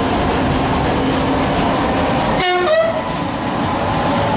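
SNCF E.436 electric locomotive and its loaded hopper wagons rolling slowly past, with a steady rumble of wheels on rail. About two and a half seconds in, the locomotive gives a brief horn toot, a friendly greeting from the driver.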